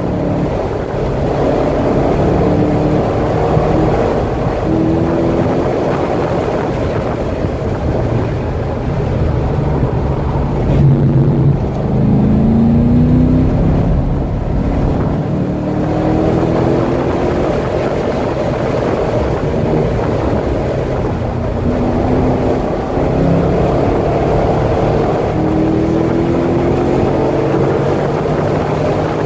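Chevrolet Corvette C6 Z06's V8 engine at full throttle on a road course, its pitch climbing through the revs several times between shifts and lifts, with wind noise throughout.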